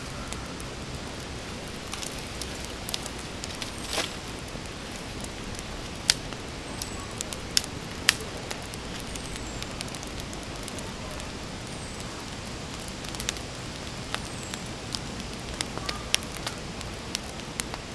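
Wood campfire crackling, with sharp pops now and then over a steady hiss.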